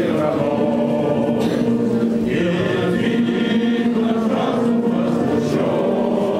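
A group of people, mostly men, singing together in unison, a slow song with long held notes.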